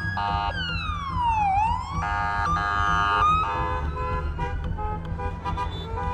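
City street traffic: vehicle horns honking and an emergency-vehicle siren sweeping down and back up about a second in, over a steady low rumble of engines.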